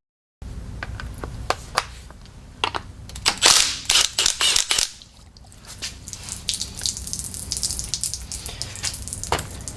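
Sharp clicks of tools on a fuel line fitting, then gasoline spilling out of the old Bosch fuel filter, splashing and dripping onto the floor in a fast patter.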